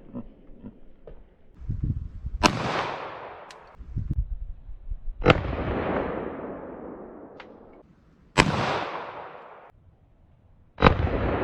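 Four handgun shots, about three seconds apart, each followed by a long fading echo.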